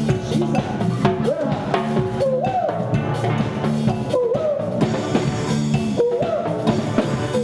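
A live steel drum band playing with a drum kit, and a man singing into a microphone over it in phrases that slide up into held notes.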